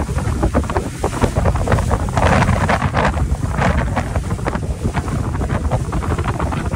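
Wind buffeting the microphone on a moving motorboat, over the steady low rumble of its engine and water rushing past. Louder gusts come about two and a half seconds in and again near four seconds.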